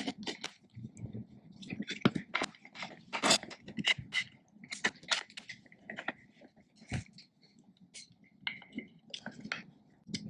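Small metal parts clicking, scraping and rattling as the wheels are bolted into aluminium inline skate frames with axle bolts and a hex key. The clicks come quickly and irregularly at first and thin out to a few near the end.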